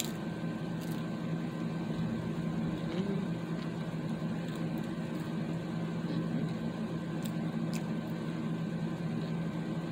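Steady low machine hum that holds one pitch throughout, with a few faint clicks over it.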